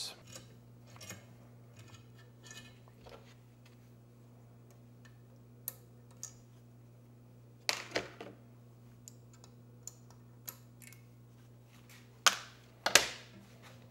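Metal clicks and taps from a valve spring compressor and valve keepers on a Datsun L26 cylinder head, as a spring is compressed and the keepers are picked out. There is a sharp clink about 8 seconds in and two more near the end, over a steady low hum.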